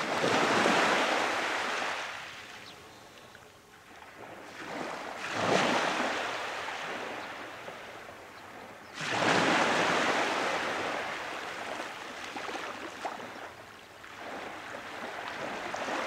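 Small sea waves breaking and washing up onto a sandy beach, in three rushes of surf a few seconds apart, with the third the longest and another building near the end.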